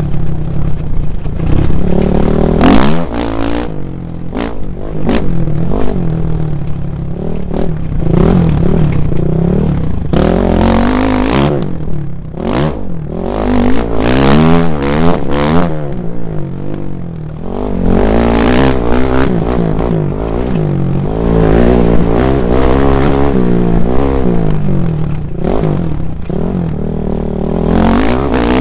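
Dirt bike engine ridden hard, revving up and falling back again and again as the rider shifts and works the throttle over rough ground. Wind noise and rattling clatter run under it.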